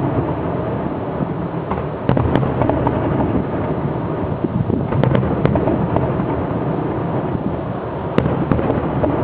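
Fireworks display: a dense, continuous rumble and crackle of bursting shells, with sharp louder bangs standing out about two, five and eight seconds in.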